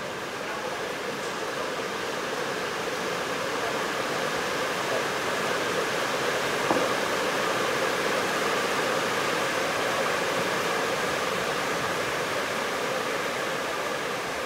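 A steady, fairly loud hiss-like background noise fills the indoor net hall, with faint steady hum lines in it. There is a single sharp knock about halfway through.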